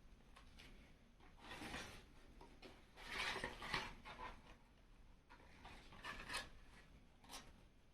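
A few short rubbing and scraping sounds of cardboard being handled and worked, the loudest a little over three seconds in.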